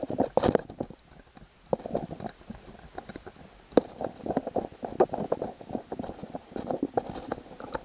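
Irregular clicking and scraping of a new screw being turned into the metal mount bracket of a trolling motor, with a few sharper ticks along the way.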